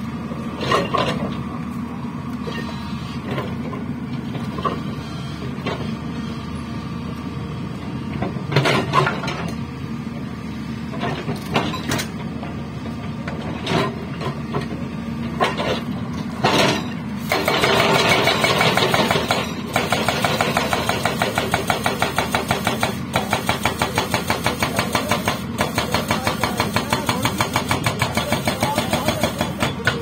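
Hyundai excavator's diesel engine running steadily, with a few scattered knocks of the breaker chisel against rock early on. Just past halfway the hydraulic rock breaker starts hammering the rock in a fast, steady rhythm of several blows a second.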